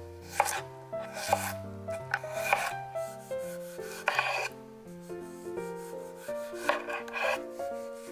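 Seki Magoroku chef's knife slicing through cucumber and then tomato on a wooden cutting board, each stroke a crisp cut ending in a tap on the board, over light background music.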